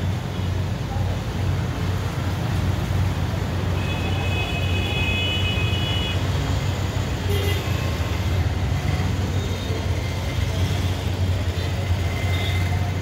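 Road traffic noise with a steady low rumble of passing motorbikes, auto-rickshaws and cars. A vehicle horn sounds for about two seconds about four seconds in.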